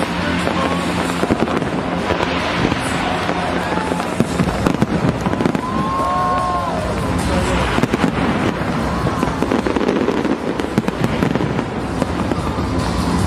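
Aerial fireworks display: a dense, continuous barrage of shells bursting, with crackling and popping.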